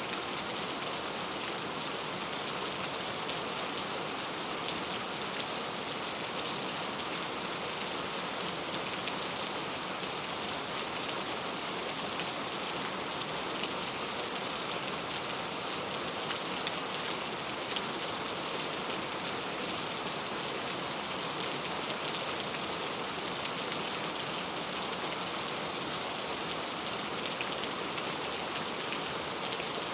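Rain falling steadily on a road: an even hiss of many drops hitting pavement, with no thunder.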